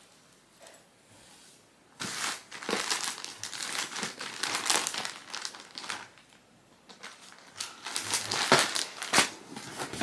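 Plastic packaging bag crinkling as it is handled, in two stretches about two seconds in and again near the end, with a quiet pause between.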